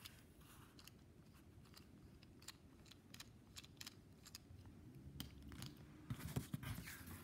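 Faint, scattered plastic clicks from a Kenner Super Powers Lex Luthor action figure being worked by hand, its legs squeezed to swing its arm in the power action nuclear punch. Louder handling rustle near the end.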